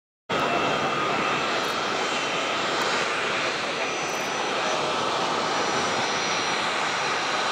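Boeing 757 freighter's twin jet engines at taxi power, a steady rushing roar with a thin high whine on top. It starts after a brief gap right at the beginning.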